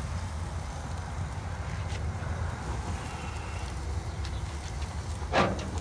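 Chicken pieces cooking on a gas grill's grate: a steady low rumble with a light hiss over it. One brief louder sound comes about five and a half seconds in.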